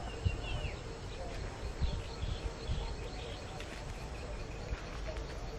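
Outdoor ambience: low rumbling background noise with a few faint bird chirps, including a short falling call about half a second in.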